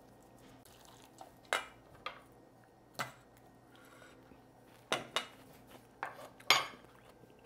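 A metal whisk clinking against a stainless steel mixing bowl while a chunky salsa is stirred: a handful of sharp, separate clinks, the loudest near the end.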